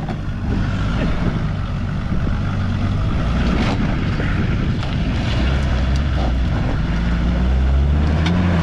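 Land Rover engine running at low revs as it drives along a green lane, its note shifting about five seconds in, with scattered knocks and rattles from the vehicle.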